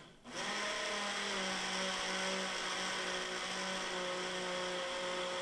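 Countertop blender running steadily as it blends a creamy walnut sauce (nogada). It cuts out for a split second right at the start, then starts up again.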